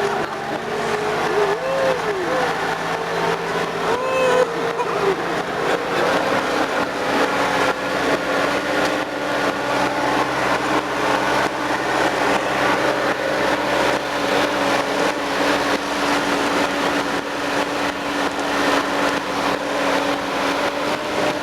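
A motor vehicle's engine running steadily under load, with a couple of brief rises in pitch in the first few seconds before it settles to an even note.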